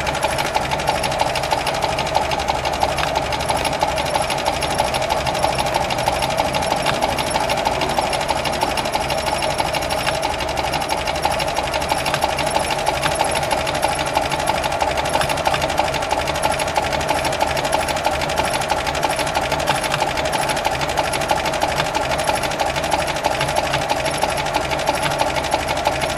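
1936 Alvis engine idling under the open bonnet, heard close up: a steady, fast, even mechanical ticking clatter.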